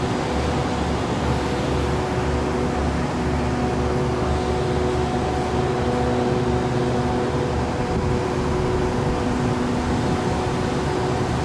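Steady hum of an idling diesel train standing at the platform: a constant low rumble with a few steady droning tones over it.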